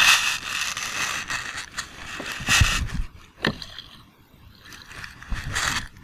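A small hooked catfish splashing at the water's surface beside a kayak as it is reeled in, in three bursts: at the start, about two and a half seconds in, and near the end.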